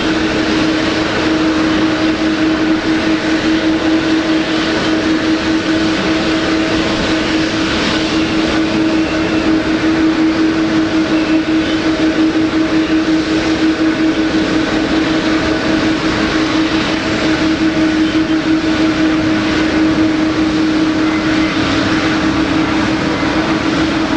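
Airbus A321-200 jet airliner's engines running, a loud, steady noise with a droning hum and fainter whining tones above it. A second, slightly lower hum joins in near the end.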